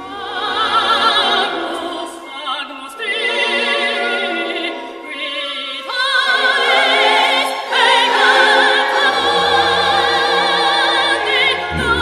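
Opera-style singing by a cartoon larva's voice: a high voice holding long notes with wide vibrato, phrase after phrase with short breaths between, over a musical accompaniment that deepens about nine seconds in.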